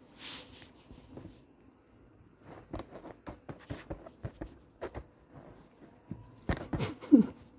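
Kittens playing at a hoodie and its drawstring: scattered taps, scratches and fabric rustles, getting busier after a couple of seconds and ending in a louder cluster of knocks with a short low falling sound near the end.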